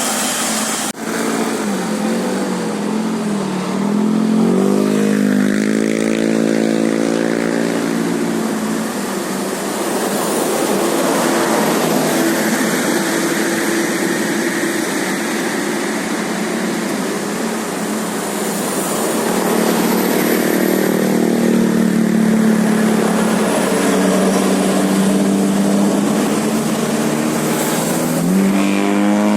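Bus engine running under load with heavy road noise. Its pitch wavers, climbs steadily in the first several seconds as the bus accelerates, holds fairly even, then rises again near the end.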